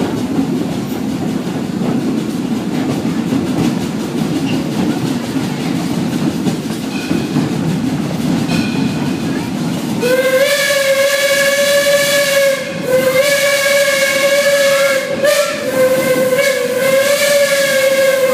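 Detroit & Lima Northern #7, a 4-4-0 steam locomotive, rolling along with a steady low rumble of the train on the track. About halfway through, its steam whistle starts blowing: three long blasts with short breaks between them.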